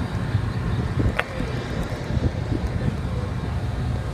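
Steady low rumble of a car ferry under way, mixed with wind buffeting the microphone.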